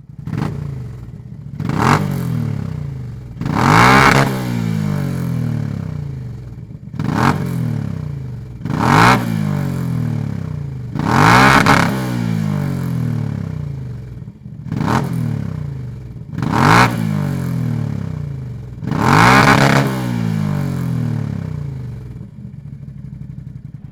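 Can-Am Outlander 650 ATV's Rotax V-twin engine with a Dominator aftermarket exhaust, idling and blipped through about eight quick revs, one every two to three seconds. Each rev rises sharply in pitch and falls back to idle.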